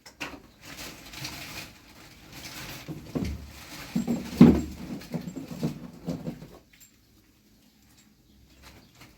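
Irregular knocking, clicking and scraping of objects being handled, with one loud thump about four and a half seconds in; it goes quiet for the last couple of seconds apart from faint ticks.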